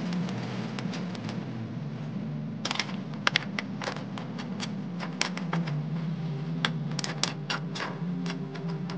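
Tulya clam shells clicking and clacking against one another and the metal pan as a utensil stirs them in boiling broth: an irregular run of sharp clicks from about three seconds in, over the steady sound of the boil.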